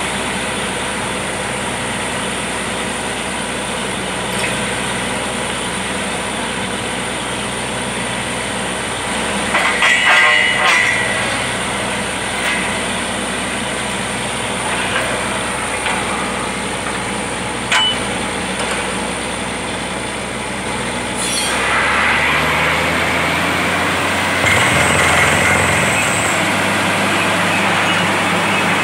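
Truck-mounted borewell drilling rig running steadily, with a burst of metal clanking from the drill rods about a third of the way in and a single knock later. A little past two-thirds through the sound shifts to a louder hiss as compressed air blows dust and cuttings up out of the bore while drilling goes on.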